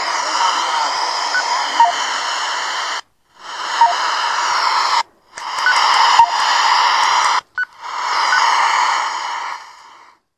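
Handheld two-way radio hissing with static, breaking off suddenly three times and coming back in each time, then fading out near the end.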